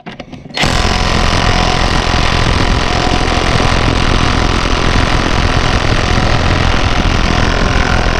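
Impact wrench hammering steadily on a minivan's lug nut, starting about half a second in. The nut does not break loose: it is seized.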